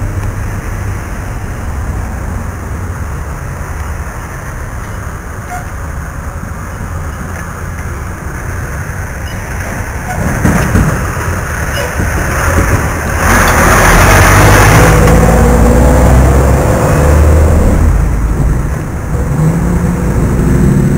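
Wind rumbling on a head-worn camera microphone over road traffic. About ten seconds in, the traffic noise swells and is loudest for a few seconds past the middle as a heavy dump truck passes close by.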